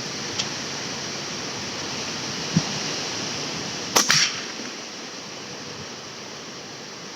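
A slingshot shot: a sharp snap of the latex bands, followed a split second later by the 9.5 mm steel ball punching through a tin can with a metallic clink, about four seconds in. There is a dull thump a little earlier, over a steady background hiss.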